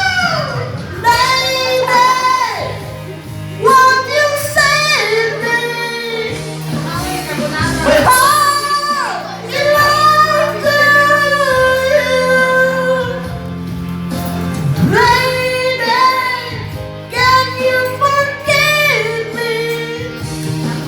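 Music: a power ballad with a high voice singing long, wavering notes over instrumental backing.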